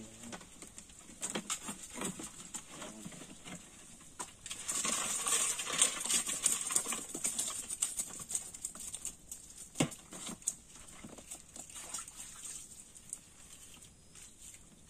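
Handling noise from a cylindrical shrimp trap: small clicks, taps and rattles as it is worked by hand, with a louder rustling rattle for a couple of seconds about five seconds in as the trap is lifted and tipped, and one sharp knock near ten seconds.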